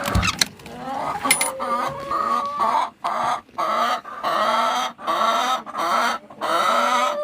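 Chickens squawking in a string of loud, harsh calls with short breaks between them, the agitated protest of hens disturbed by someone entering the coop. A few sharp clacks come in the first second and a half.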